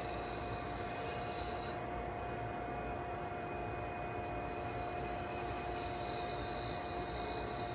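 Laguna wood lathe running with a steady motor tone while a turning tool cuts a thin curly cherry handle. The hiss of the cut fades about two seconds in and comes back around five seconds.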